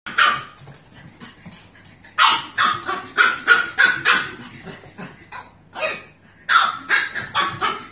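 Pug puppy barking in high, sharp yaps: a single yap at the start, then quick runs of several yaps about a third of a second apart, a couple of seconds in and again near the end.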